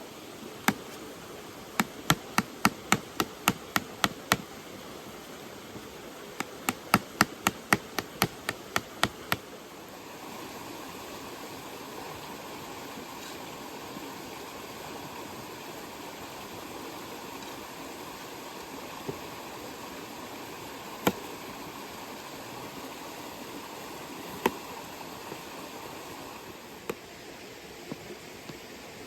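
Knife chopping on a cutting board: two quick runs of sharp chops, about four a second, then a few single chops later on, over a steady background hiss.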